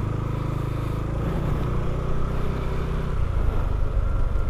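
Motorcycle engine running steadily while riding, with a continuous low engine note.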